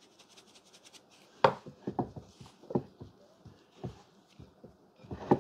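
Raw chicken legs coated in self-rising flour being tossed by hand in a mixing bowl: irregular dull knocks as the pieces bump the bowl, the loudest about a second and a half in and again near the end, with soft rustling of flour between them.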